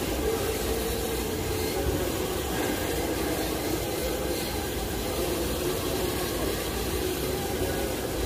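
A power sander running steadily on a body panel: a continuous whirring hum with an even hiss.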